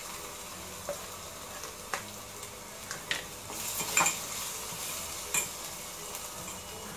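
Green masala paste of chilli, ginger and garlic sizzling in hot oil in a small metal pot as it is sautéed. A spoon scrapes and knocks against the pot while stirring, giving several sharp clinks, the loudest about four seconds in.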